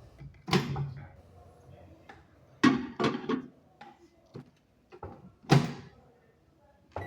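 A series of loud knocks and thuds, about five sharp impacts a second or two apart, with quieter clicks in between, as something hard is handled and shut.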